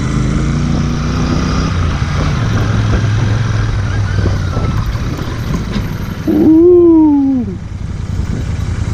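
Royal Enfield Interceptor 650's parallel-twin engine running on the move, its note dropping a little under two seconds in. A little over six seconds in, a drawn-out vocal call rises and then falls in pitch for just over a second, louder than the engine.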